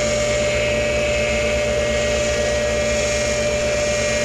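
Tool and cutter grinder running with a steady whine, its wheel taking light passes over the teeth of milling cutters sharpened on their arbor.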